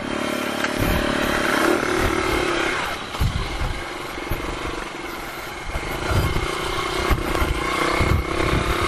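Rusi KR 125 dirt bike's single-cylinder engine running as it is ridden along a trail, easing off about three seconds in and picking up again about six seconds in, with uneven low rumbling throughout.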